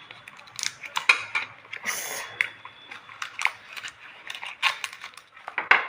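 Banana leaf rustling and crackling as it is folded around fish by hand, with scattered sharp clicks and a brief hiss about two seconds in.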